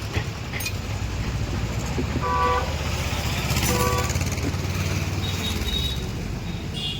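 Street traffic: a vehicle engine running with a low rumble that swells mid-way, and two short horn toots about two and four seconds in.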